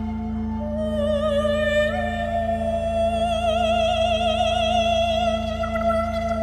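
Improvised wordless singing: a long held high vocal tone with a wide, regular vibrato, stepping up in pitch about two seconds in, over a steady low drone.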